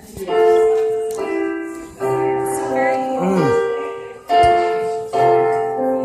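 Piano music: full chords struck one after another, each left to ring and fade before the next.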